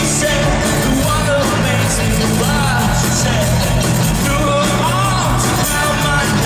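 Live rock band playing through an arena PA, with a male lead singer, recorded from the audience.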